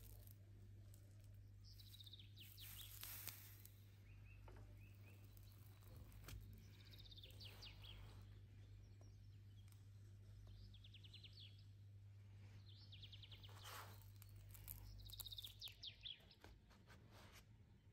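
Near-silent room tone with a steady low hum, and a bird's faint chirping trills every few seconds.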